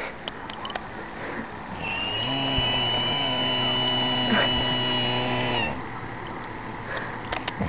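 A man snoring with an unusual, drawn-out, pitched drone and a thin high whistle over it. One long snore starts about two seconds in and lasts about four seconds, with a few soft clicks near the start and near the end.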